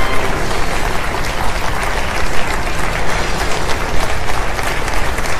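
Studio audience applauding: many hands clapping at once, steady and loud.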